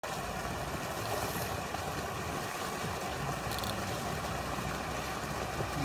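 Water pouring from a pipe outlet into a pond, a steady rushing splash, with a brief small click about three and a half seconds in.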